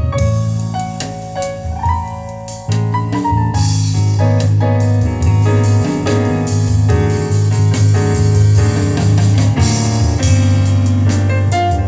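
Piano-led music with bass and drums played through a pair of Sony SS-CM3 bookshelf speakers, each with a 4.5-inch paper-cone woofer and a 1.5-inch tweeter. About three seconds in, the arrangement fills out and gets louder, with a heavy bass line.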